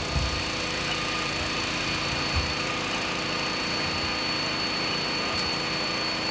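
A fire engine's diesel engine running steadily at idle at the fire scene, with a thin steady high whine over it.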